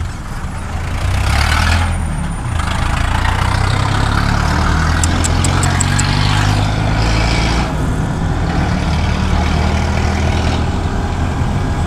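Kawasaki Ninja 650's parallel-twin engine pulling away over the first couple of seconds, then running steadily under way, with wind rushing over the microphone. A few faint high ticks come about five seconds in.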